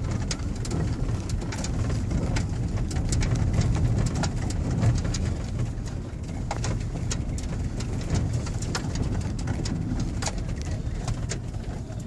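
Pickup truck driving slowly over a rough dirt track, heard from inside the cab: a steady low engine and road rumble with frequent, irregular sharp clicks and rattles.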